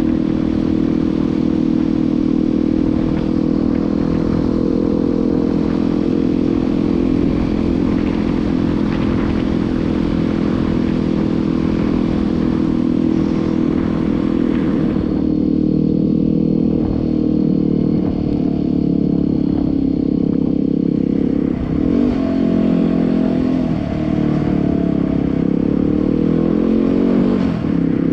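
Yamaha WR250R's single-cylinder four-stroke engine running on the move, with a rushing hiss over it that thins about halfway through. Near the end the engine pitch dips and rises a few times as the throttle changes.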